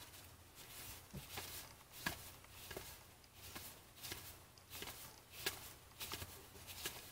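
Trading cards being flipped through one at a time, a faint click or snap of card stock at roughly two a second.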